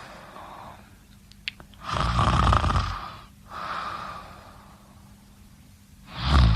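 Someone snoring in slow breaths: a loud rasping snore about two seconds in, a softer one a second or so later, and another loud, more tonal snore beginning near the end. A brief faint click comes about a second and a half in.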